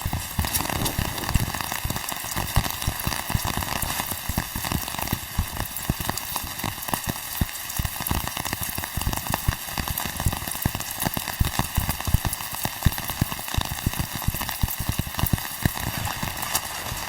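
Rain falling steadily, with a dense, irregular patter of drops.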